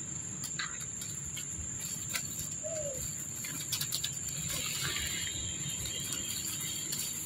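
Outdoor ambience: a steady high-pitched tone runs under scattered short rustles and clicks of dry leaf litter, with one short falling coo about three seconds in.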